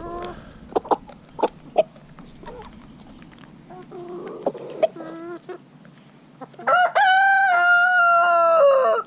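Chickens pecking raisins from a plastic cup, with a few sharp taps and some short clucks. About two-thirds of the way through, a rooster crows once, a loud call of a little over two seconds that rises at the start, holds and falls away at the end.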